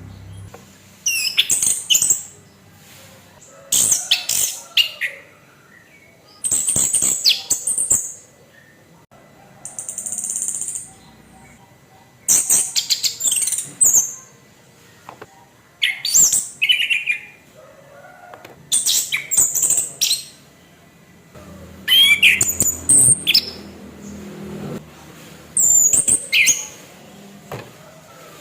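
Chestnut-capped thrush (anis kembang) singing a harsh, loud song: short phrases of rapid notes and whistles, about one every two to three seconds.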